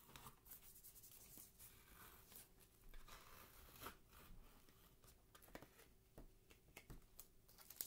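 Masking tape being peeled slowly off thick watercolour paper: faint, irregular crackles of the adhesive letting go.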